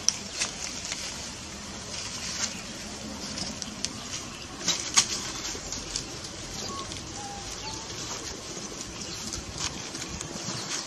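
Dry leaf litter crackling and rustling as macaques move over it: scattered sharp clicks, the loudest about five seconds in, over a steady outdoor hiss.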